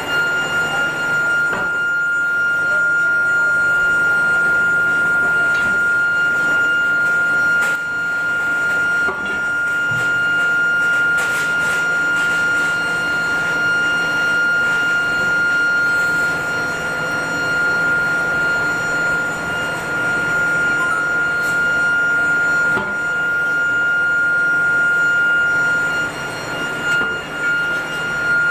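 Steady high-pitched whine, one constant tone with a fainter higher overtone, over an even industrial din from iron-furnace machinery heating steel bars.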